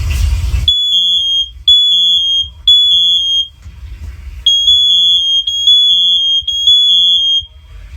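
Interconnected First Alert OneLink smoke alarms sounding in test mode: a loud, high-pitched beep in the temporal-three pattern, three beeps, a pause, then three more. It starts under a second in and is the interconnected units answering a test started on one alarm.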